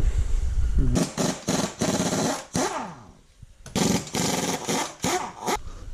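Impact wrench run in several short bursts on the wheel's lug bolts, its motor pitch winding down between bursts.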